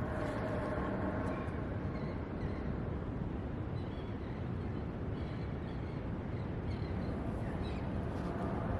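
Steady outdoor rushing noise, the wind-and-surf ambience of a beach, with a few faint bird calls.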